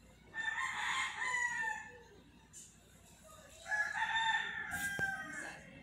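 A rooster crowing twice, each crow drawn out for about a second and a half.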